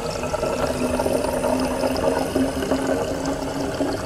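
Thin stream of water from a bottle refill machine's spout running steadily into a plastic bottle as it fills.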